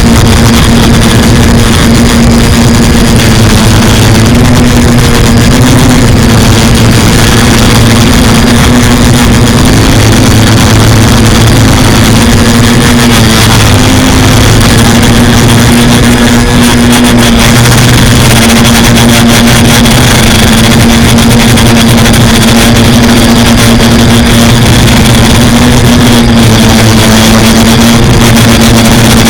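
Quadcopter electric motors and propellers buzzing, loud and steady, the pitch wavering slightly with throttle, over rushing noise.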